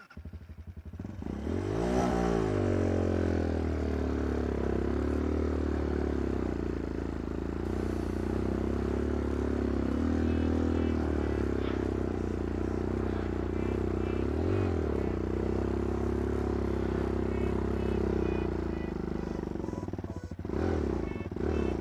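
Quad bike engine running hard at high revs. The pitch rises about two seconds in, then holds, wavering with the throttle, as the quad works along a muddy rut.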